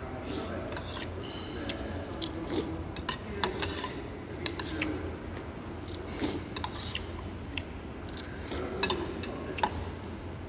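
A metal spoon clinking irregularly against a soup bowl and a sectioned meal tray, with eating sounds of sipping and chewing, over a steady low hum.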